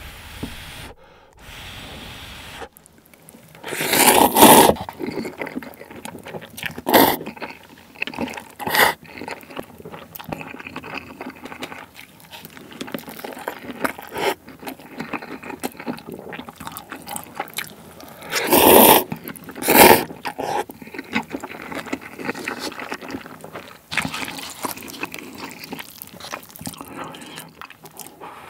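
Close-miked eating sounds: a person slurping instant cup noodles in loud sucking pulls, the biggest about 4 seconds in and a pair near the 19–20 second mark, with wet chewing between them.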